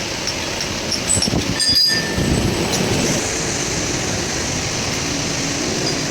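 Steady mechanical noise with a brief high-pitched metallic squeal about a second and a half in.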